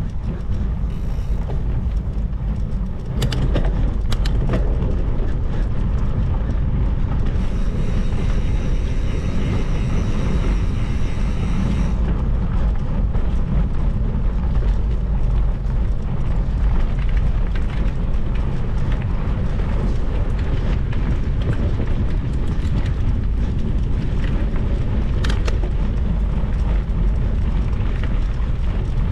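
Steady wind rumble on the microphone, with a few sharp knocks about three to four and a half seconds in.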